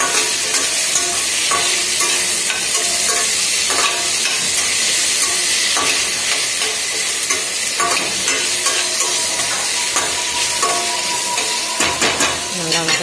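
Tomatoes, green chillies and onions sizzling in hot oil in a stainless-steel kadai while a metal ladle stirs them, scraping and clinking against the pan over and over.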